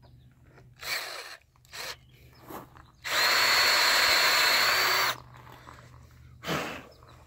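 Cordless drill running steadily for about two seconds with a whine, drilling out a stripped engine-mount bolt hole in a Kohler Courage engine block to size for a Heli-coil thread insert.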